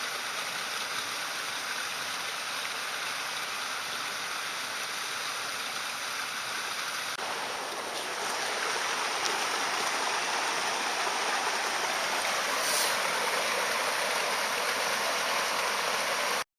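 Steady rushing of flowing stream water. About seven seconds in the sound changes abruptly, then runs a little louder and brighter.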